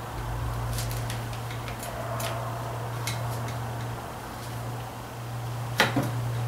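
Light metal clicks and taps from the Ford 2N rear axle and brake housing being worked into place, with a sharper knock near the end, over a steady low hum.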